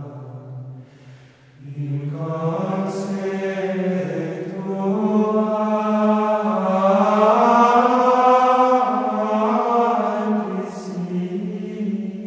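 Background music of low voices chanting in long held notes, fading briefly about a second in and then swelling again.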